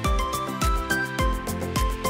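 Background music with a steady beat, a low drum hit about twice a second under a melodic lead.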